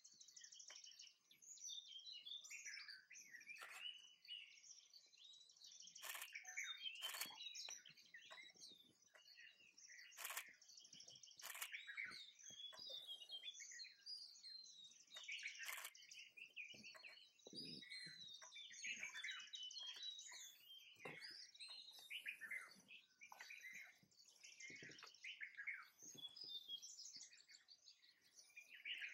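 Small birds chirping and calling almost without pause, many overlapping quick high calls, with a few sharp clicks scattered through the first half.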